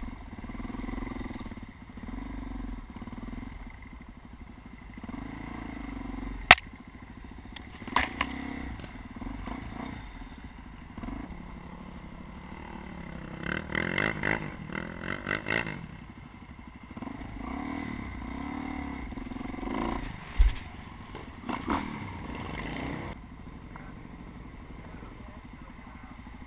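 Motorcycle engine being ridden, its revs rising and falling as the throttle opens and closes, with several sharp knocks and clatters along the way, the loudest about six seconds in. Near the end it settles to a steadier, quieter run.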